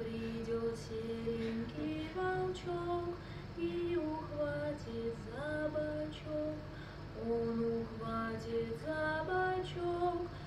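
A woman singing a slow melody of long held notes, sliding between pitches.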